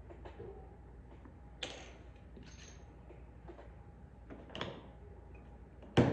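A few light clicks and knocks from handling a button maker and its button parts, three spread out over several seconds, the last the loudest near the end, over a low steady room hum.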